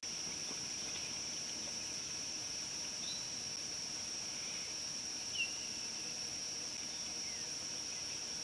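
Steady, high, continuous drone of insects in an outdoor chorus, with a few short bird chirps over it, the loudest about five seconds in.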